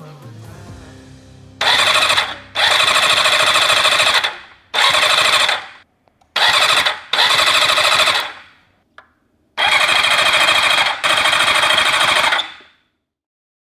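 Kawasaki Zephyr's air-cooled inline-four being cranked and started after an amateur overhaul: about seven loud bursts of rattling mechanical noise, each up to about two seconds long, with short pauses, some cutting off and others fading out.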